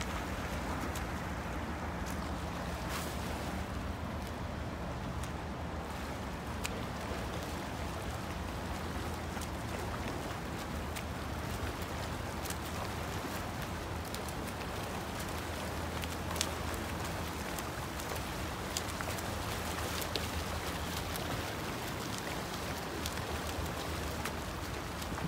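Water splashing and churning from a swimmer's freestyle arm strokes and fin kicks, with scattered sharp splash ticks over a steady low rumble.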